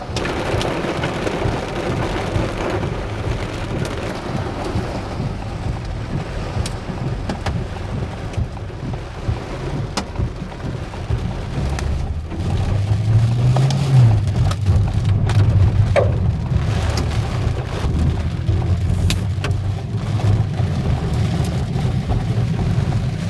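Heavy rain mixed with hail pelting down, with scattered sharp hits of hailstones. A deep low rumble sets in about halfway through and carries on to the end.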